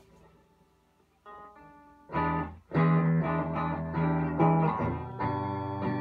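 Electric guitar played clean through a freshly repaired Fender Deluxe Reverb AB763 tube amp. After a near-quiet first second and a soft chord, it moves into louder strummed chords from about two seconds in. The amp comes through with no audible hum, a sign the repair worked.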